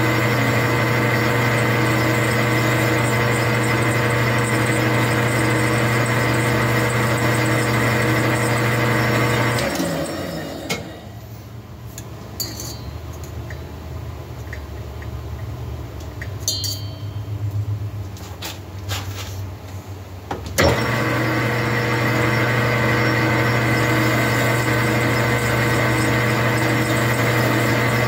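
Metal lathe running steadily with a motor hum, spinning a chainsaw cylinder in its chuck; about ten seconds in it is switched off and spins down. In the quiet that follows there are a few light metal clicks as the cut is checked with a pick, and about twenty seconds in the lathe starts again sharply and runs steadily.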